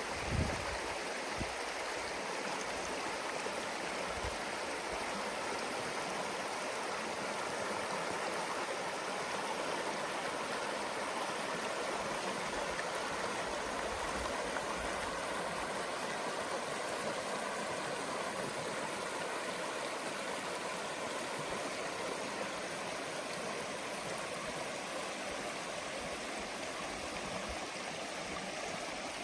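A river flowing steadily over rocks, an even rush of running water. A brief low thump just after the start.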